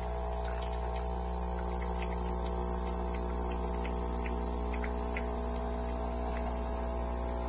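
Dolce Gusto coffee machine's vibration pump humming steadily as it pumps hot water out of the spout into a plastic jug, with faint ticks of the water stream. The hum shows the newly unclogged pump is drawing water again.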